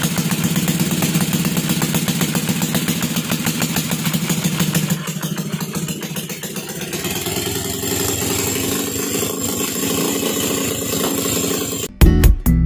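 Motorstar Xplorer Z200's single-cylinder pushrod four-stroke engine running just after starting, freshly top-overhauled with its cam timing and valve clearance newly set. It runs a little faster at first and settles slightly lower about five seconds in. Near the end it cuts to loud music.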